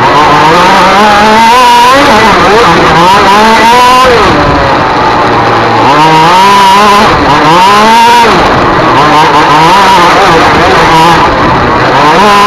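Race car engine at full throttle, its pitch climbing hard and then dropping sharply about four times as it accelerates and eases off or shifts.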